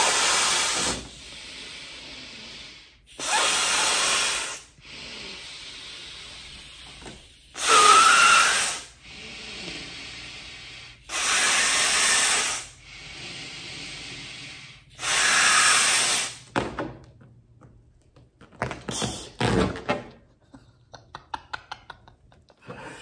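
A person blowing hard into a thin white glove to inflate it like a balloon: five long breaths rush into it about every four seconds, with quieter breathing between. From about three-quarters of the way in, the stretched, inflated glove gives a run of sharp squeaks and creaks as it is handled.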